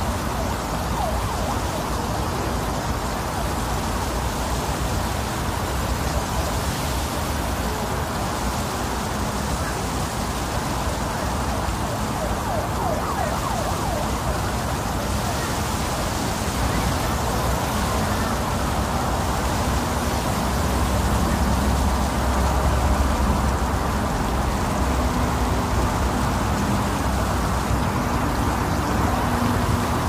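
Wind blowing steadily, a dense rushing noise with faint gliding whistles, swelling louder with a low rumble about two-thirds of the way in.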